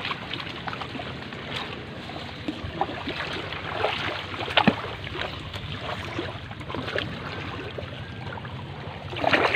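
Steady hiss of wind and sea surf on an open coral-rock shore, with scattered small clicks and scrapes on the rock throughout.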